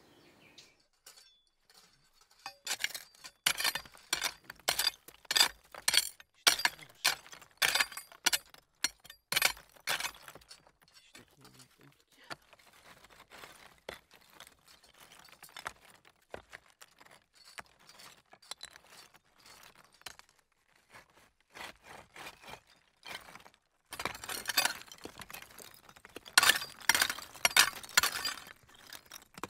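Loose volcanic stones clinking and crunching against each other as gloved hands dig through lava rubble, in quick clusters of sharp clicks. The clicking is busiest from a few seconds in to about ten seconds, thins out, then picks up again near the end.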